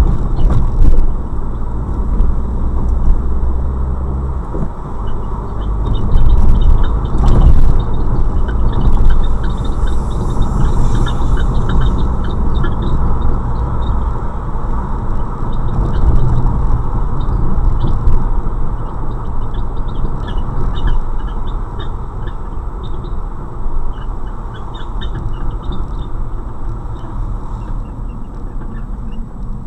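Fiat Bravo on the move, a steady low road and engine rumble overlaid with many short, irregular high-pitched squeaks. The owner hears this squeak at low and high speed, in gear or coasting, clutch in or out, but not while accelerating.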